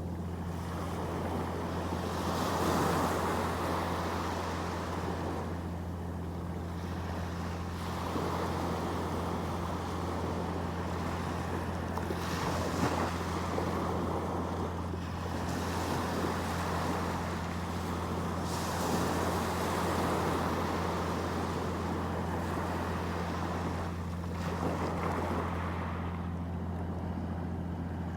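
Sea waves breaking and washing on the shore, surging about every four to six seconds, over a steady low hum.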